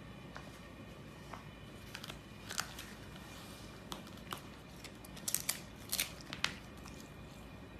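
A dachshund biting and chewing a green plant stalk, giving scattered sharp crunches, with a quick cluster of them a little past the middle.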